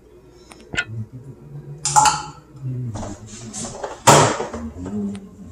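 Kitchen clatter at a sink: a few knocks and clinks of an emptied container and dishes being handled and set down, with two louder clatters about two seconds apart, the second the loudest.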